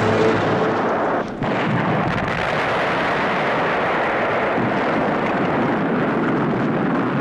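Battle sound effect of field artillery: a dense, steady rumble of gunfire and explosions, with a brief dip about a second in.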